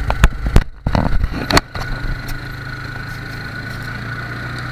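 ATV engine running steadily, with several sharp knocks and rattles in the first two seconds.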